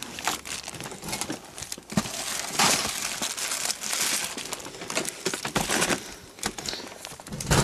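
Plastic bags crinkling and rustling as bagged items are handled and shifted about, with a few knocks. The crinkling is densest through the middle.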